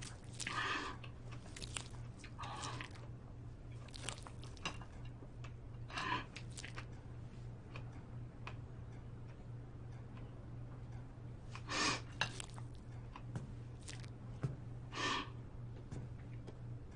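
A person binge-eating soft cake with her hands, making wet chewing and mouth sounds. Several short, sharper sounds come at scattered points, the strongest about two-thirds of the way through and near the end, over a faint steady low hum.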